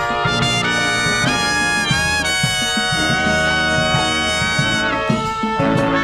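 Brass marching band playing: trumpets, trombones, saxophones and sousaphones together, with long held notes and chords.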